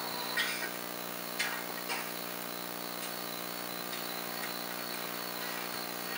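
Steady low mechanical hum with a few short soft clicks in the first two seconds.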